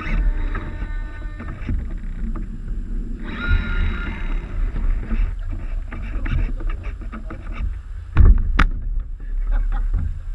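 Water splashing and lapping against the hulls of a Mini40 radio-controlled model trimaran as it sails, heard from a camera mounted just above the water. Wind rumbles on the microphone throughout. Two sharp slaps come a little after eight seconds in.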